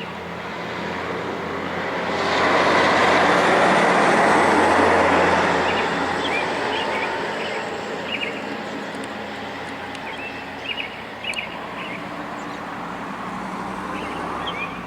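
A vehicle driving past, its noise swelling about two seconds in and fading away slowly over the next several seconds, while birds chirp.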